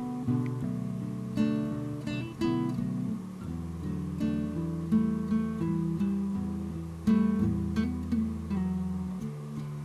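Background acoustic guitar music: plucked and strummed notes and chords.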